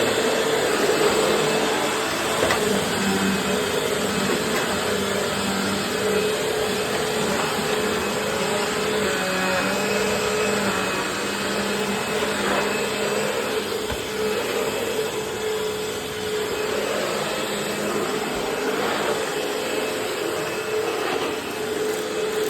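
Eureka Maxima 4700D 12-amp upright vacuum cleaner running steadily, its motor holding a constant hum over a whoosh of airflow.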